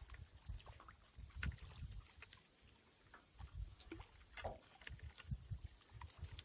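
Shallow muddy water sloshing and splashing around a wading man and a netted sawfish as he works it with a pole, with irregular low gusty rumble and a steady high hiss underneath.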